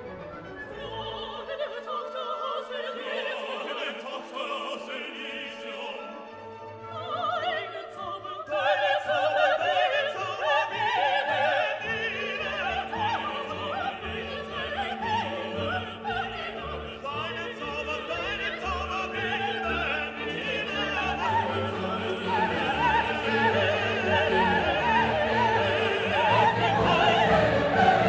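Classical orchestral music with operatic singing. It is quieter at first, swells louder about a third of the way in, and builds further near the end.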